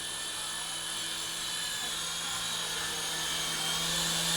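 SYMA S50H micro coaxial RC helicopter in flight, its small electric motors and rotors giving a steady high-pitched whine over a low hum, growing slowly louder as it approaches to land.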